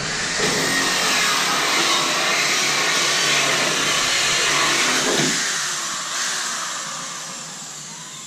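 Cordless drill running steadily as it mixes two-part expanding foam in a container, with a brief dip in speed about five seconds in, then fading away near the end.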